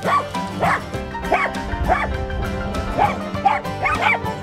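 Corgi barking repeatedly at sheep as it herds them, about two sharp barks a second, over background music.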